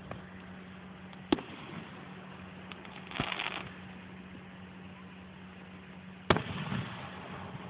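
Aerial fireworks bursting: sharp bangs about a second in and about three seconds in, then the loudest boom about six seconds in, trailing off into an echo.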